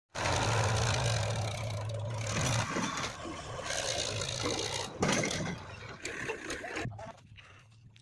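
Sonalika DI 35 RX diesel tractor engine running hard as it pulls a trailer heaped with soil through loose ground, with a low steady drone for the first two and a half seconds, then more uneven and fading toward the end.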